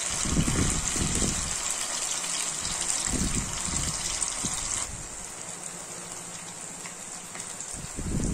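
Beef 65 pieces deep-frying in hot oil in a kadai: a steady sizzle with fine crackling, easing a little about five seconds in.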